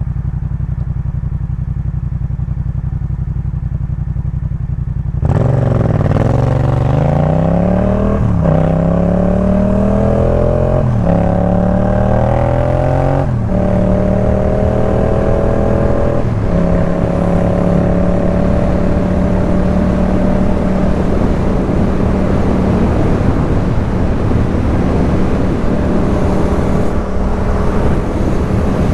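Yamaha MT-07's parallel-twin engine through a Jeskap K4 full exhaust, running at a steady low note, then about five seconds in pulling away hard and revving up through four quick upshifts before settling into a steady cruise.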